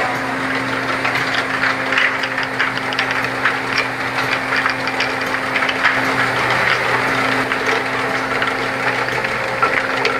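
EBI 07 jar-labelling machine running: a steady motor hum with frequent light clicks and clinks as glass jars move along the conveyor. The hum weakens briefly about two-thirds of the way through.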